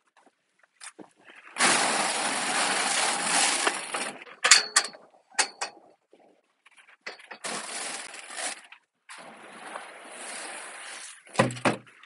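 Dry cattle feed pouring from a bucket. It makes a steady rushing hiss in three spells, the first one loud and the later two quieter, with a few light clinks and knocks in between.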